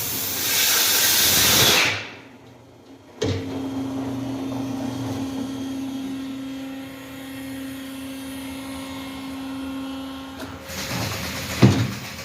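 Tyre changer machine at work: compressed air hissing from its pneumatic cylinders, cutting off about two seconds in. After a short quiet gap, the machine's motor hums steadily for about seven seconds, followed by more air and a knock near the end.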